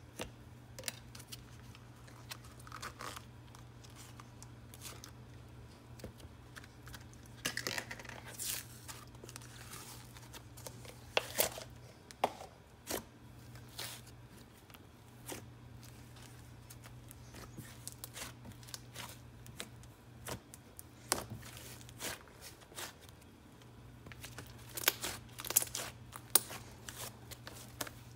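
Glue-and-clay slime being stretched, folded and squeezed by hand, with sticky crackling and clicking in irregular bursts. The bursts are loudest around the middle and near the end.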